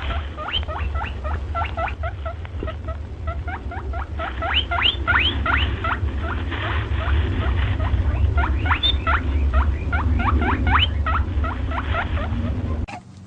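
Squirrel giving a rapid run of short, sharp rising chirps, about four a second, with brief pauses, over a steady low rumble. It stops suddenly near the end.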